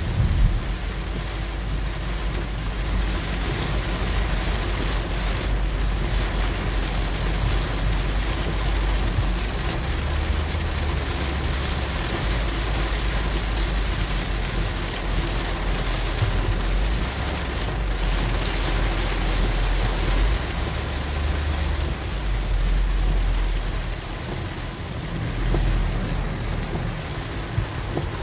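Heavy rain on the windshield and roof of a moving 2006 Ford Freestar minivan, heard from inside the cabin, over a steady low road rumble as the tyres run through water on the road.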